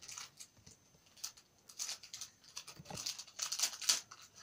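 Small foil packet crinkling and rustling in the hands as it is worked open, in irregular crackles that grow denser and louder near the end.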